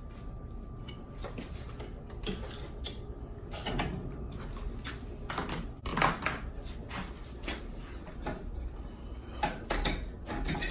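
Scattered metallic clanks and knocks, irregular and a second or more apart, as a bar is chiselled and worked loose from a wall opening.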